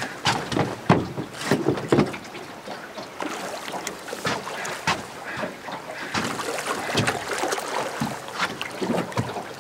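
Water splashing and slapping at the side of an all-metal boat, with irregular knocks and clatter as a landing net is dipped and swept through the water.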